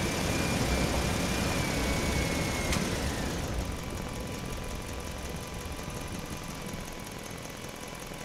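Steady engine-like rumble, with a thin high whistling tone over it that stops about three seconds in, after which the rumble eases a little.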